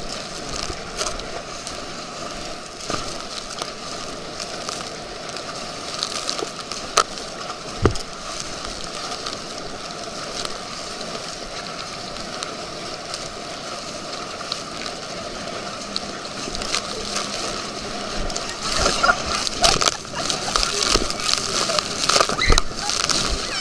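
Lake water rushing and splashing against a tube towed behind a motorboat as it bounces across the boat's wake. There are a couple of sharp knocks partway through, and the splashing gets heavier and choppier over the last few seconds.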